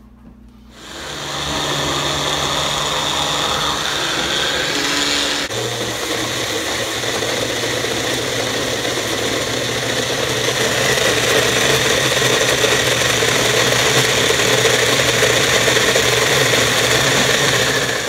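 Magic Bullet blender running, blending frozen fruit and water into a smoothie: the motor starts about a second in and runs steadily, its low hum dropping slightly about five seconds in.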